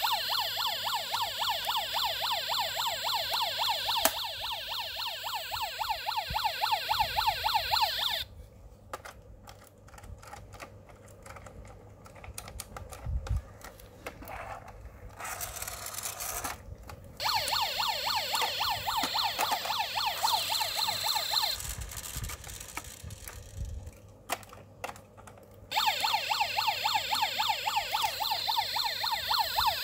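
The sound module of a Jinlifang 1/24 scale diecast IVECO police van plays a fast warbling siren. It runs for about eight seconds, stops, comes back for about eight more, stops, and starts again near the end. In the gaps there are plastic clicks and a low rumble from the toy being handled and pushed along the floor.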